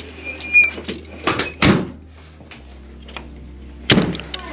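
Clunks and knocks of a pickup's tailgate and camper-shell door being handled, several in the first two seconds with the loudest about a second and a half in, and one more sharp knock near the end.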